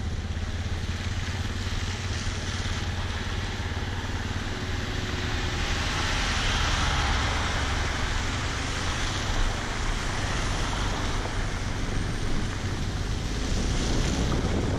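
Yamaha Ténéré 250 single-cylinder motorcycle engine running at low road speed with a steady low rumble, mixed with wind on the microphone. A hiss of tyres running through mud and standing water swells in the middle.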